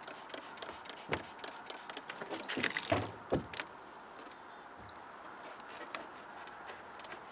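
Crickets chirping steadily outdoors, with scattered small handling clicks and a short scrubbing noise about two and a half seconds in as the surface is wiped clean.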